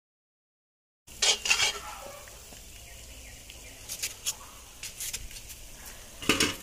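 Starting about a second in, a metal spoon scrapes twice in a wok of frying onions. A few light clicks and a loud knock follow as a marinated whole chicken is handled over a steel bowl, with a faint steady sizzle underneath.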